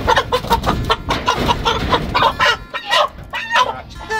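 Rainbow Ranger broiler chickens squawking and clucking in a rapid run of short calls as one is grabbed and caught by hand.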